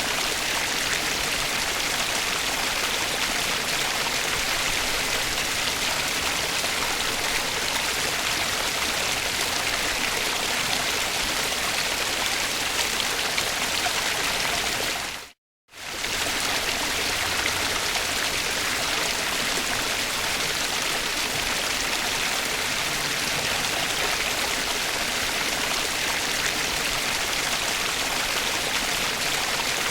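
Water running steadily down a pondless waterfall's rock cascade, splashing and streaming over the stones. It cuts out for a split second about halfway through.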